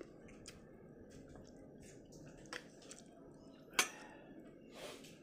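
Wet mouth sounds of someone eating spaghetti in tomato sauce close to the microphone: soft chewing, slurping and lip smacks, with a sharper click a little before four seconds in.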